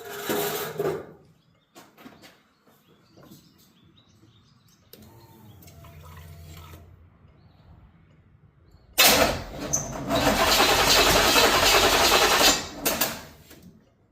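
Starter cranking the Camaro's 350 V8 without it starting, on a battery the owner finds dead. There is a weak, quieter attempt a few seconds in, then a loud one of about four seconds near the end that stops abruptly.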